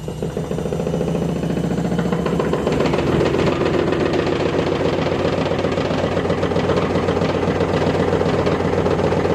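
LG washing machine spinning with a loud, rapid knocking rattle: the noise it makes when centrifuging. It grows louder over the first three seconds, then holds steady.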